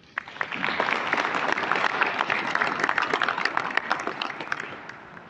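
Audience applauding: many hands clapping, starting suddenly and dying away over the last second.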